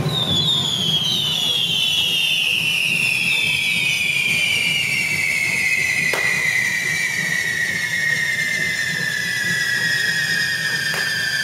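Several whistling carretilla fireworks burning together on the devils' forks: a loud shrill whistle that slides steadily down in pitch as the charges burn, over a low rumble. A single sharp crack comes about six seconds in.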